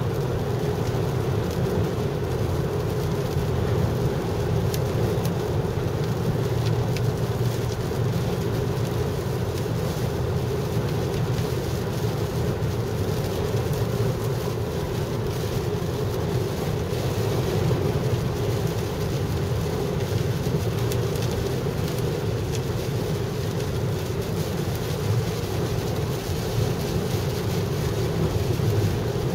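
Steady road and engine noise heard inside a car at highway speed, with heavy rain hitting the windshield and roof.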